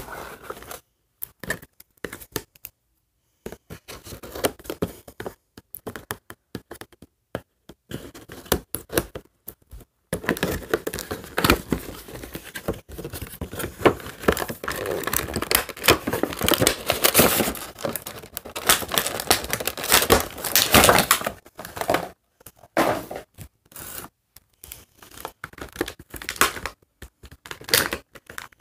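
Cardboard and plastic doll packaging being torn open and crinkled, with scratching and sharp clicks. The tearing and rustling is busiest from about ten seconds in to about twenty seconds in.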